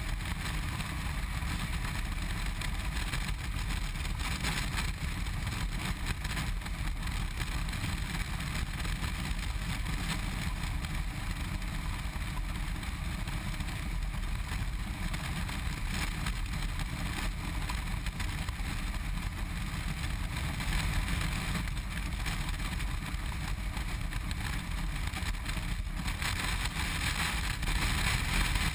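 Steady wind rush and engine drone of a BMW R1200RT boxer-twin motorcycle cruising at highway speed, heard from behind its windscreen. Near the end the sound breaks briefly and the hiss comes back brighter.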